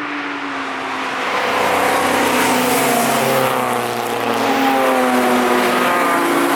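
Cars driving past at speed on a race track, their engines running hard, with the engine notes sliding in pitch as they pass and change revs. It grows louder about a second and a half in.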